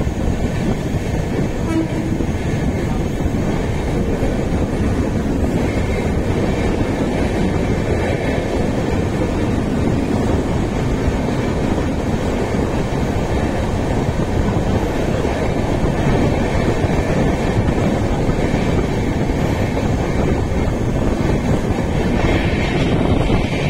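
Mumbai suburban local train running along the track: a loud, steady rumble of wheels and carriages.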